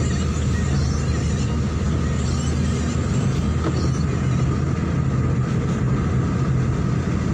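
Steady road noise of a car driving on a wet motorway, heard inside the cabin: a low engine and drivetrain hum under the hiss of tyres on wet asphalt.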